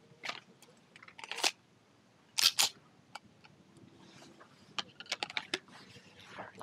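Metallic clicks and clacks of a CZ SP-01 pistol being loaded and handled: magazine seated and slide worked, with the loudest double clack about two and a half seconds in and a quick run of lighter clicks around five seconds.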